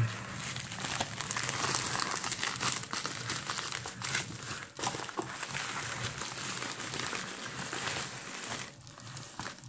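Padded plastic mailer being handled and pulled open by hand: a continuous crinkling rustle with many small crackles, easing off near the end.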